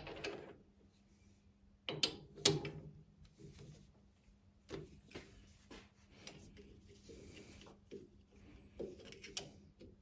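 Scattered metal clicks and clanks of a spark plug socket being set in a lathe's three-jaw chuck, the chuck turned by hand and a steel caliper handled against the part. The loudest clanks come about two seconds in, over a faint steady hum.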